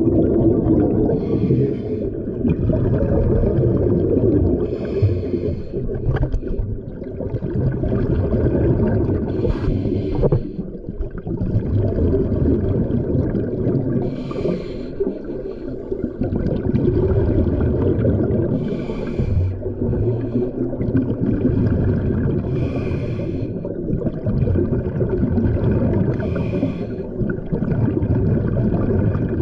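Scuba diver breathing underwater through a regulator, heard as a breath about every four seconds with a rush of exhaust bubbles, over a steady low rumble of water.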